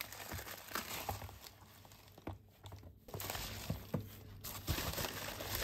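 Plastic poly mailer bag crinkling and rustling as it is cut open and handled, with a few faint knocks of small cardboard boxes being lifted out.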